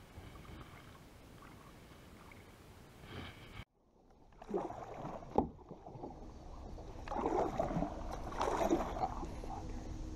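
A kayak moving through the water: irregular paddle splashes and water sloshing against the hull. There is a sharp knock about five and a half seconds in.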